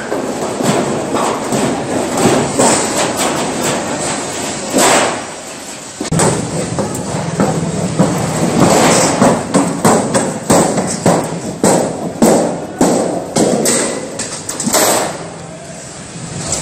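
Irregular thumps and metallic clatter of thin galvanized steel sheet being handled and flexed on a concrete floor.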